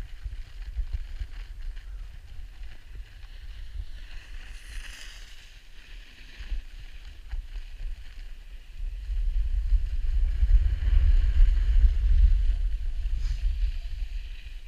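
Wind buffeting an action camera's microphone on a run down a groomed ski slope: a low rumble that grows louder about nine seconds in and eases near the end, over a steady hiss of sliding on snow.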